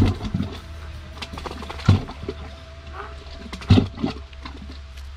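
Sludge bailer on a rope dropped down inside a 160 mm plastic well pipe, hitting the bottom with three dull thumps about two seconds apart, over a steady low hum. The pounding bailer loosens the sand under the pipe so that it sinks a little.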